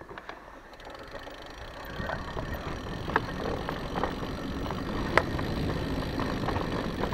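Mountain bike rolling down a grassy track: the low rumble of tyres and wind on the handlebar-mounted camera builds as the bike picks up speed. Scattered sharp clicks and rattles come from the bike jolting over bumps, the loudest a little past five seconds in.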